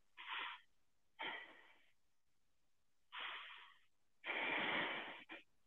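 A man's faint breaths while he holds the bow pose, a deep yoga backbend: a few short breaths in and out, with a longer exhale about four seconds in.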